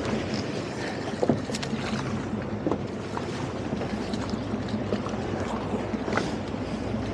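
Boat engine running steadily as a low hum, with water slapping against the hull in short splashes.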